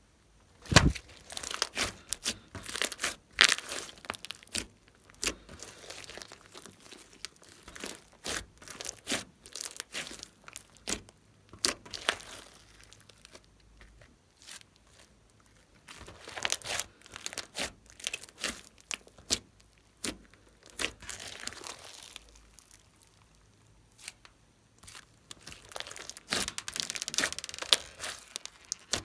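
Glossy slime being stretched, folded and pressed by hands, giving bouts of sharp sticky clicks and crackles separated by short quiet pauses.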